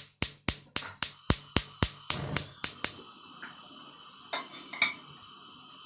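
A rapid, evenly spaced run of sharp clicks or taps, about four a second, that stops about three seconds in. Two fainter knocks follow later over a steady low hiss.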